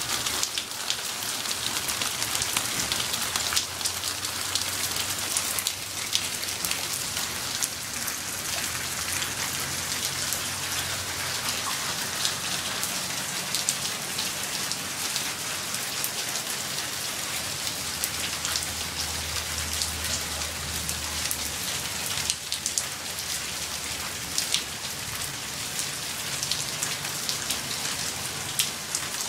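Steady rain falling, light to medium, a dense hiss peppered with the ticks of individual drops.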